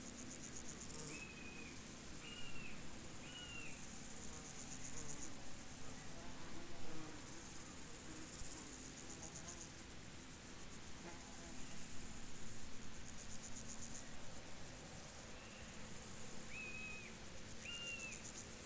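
Field insects trilling in high, rapidly pulsed bursts of a second or so, repeating every few seconds. Near the start and again near the end, short chirping calls come three at a time.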